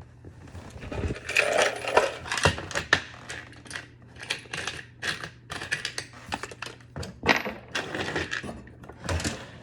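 Repeated light clinks, clicks and rattles of small metal parts and tools being handled while working on a dishwasher control panel, busiest in the first few seconds, over a steady low hum.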